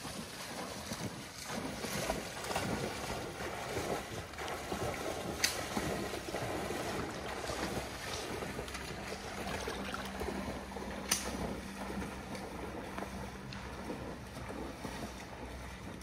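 Wading through shallow floodwater in flooded woods: steady sloshing and splashing of legs pushing through the water, with two sharp clicks, about five and eleven seconds in.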